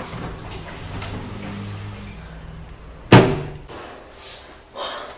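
A door slams shut once, sharply and loudly, about three seconds in, after a low steady hum. A couple of fainter short sounds follow.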